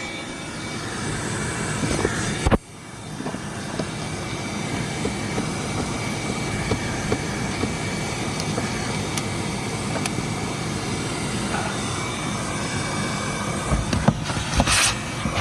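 Vacuum cleaner running steadily with a thin whine, cleaning out a car's cabin air filter housing. About two and a half seconds in there is a sharp knock, the sound drops briefly and builds back up.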